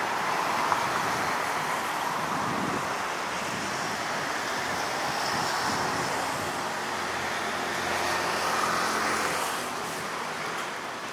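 Alstom Citadis 305 light-rail tram pulling away along the track and moving off, over steady road traffic noise. The sound fades toward the end.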